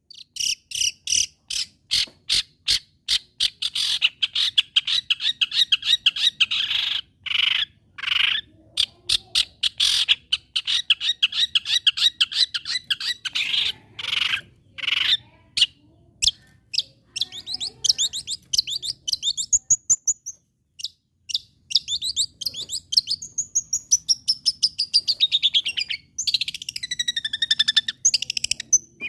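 Long-tailed shrike (cendet) in full song: a long, fast run of sharp chattering notes repeated several times a second. From a little past the middle it changes to sliding, sweeping whistled phrases that fall in pitch.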